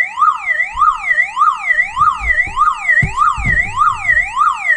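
Car alarm siren unit with its own backup battery sounding, opened up with its speaker exposed: a loud warbling tone sweeping rapidly up and down about two and a half times a second. A few low knocks come in the middle.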